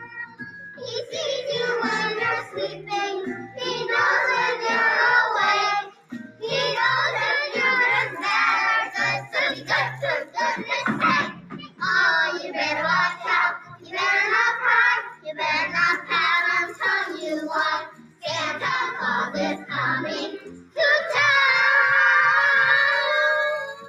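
A group of young children singing a song together in phrases with short breaks between them, finishing on a long held note near the end.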